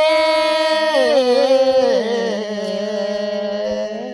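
A man singing unaccompanied: a long held note of a Koraputia Desia folk song that glides down to a lower note after about a second and a half and holds it.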